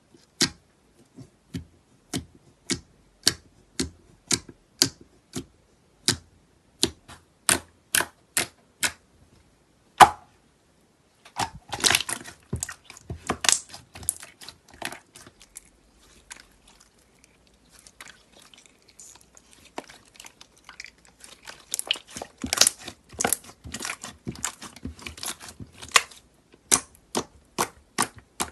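Crunchy slime being pressed and squeezed by hand: a run of crisp pops about two a second, one louder pop, then two stretches of dense crackling, and evenly spaced pops again near the end.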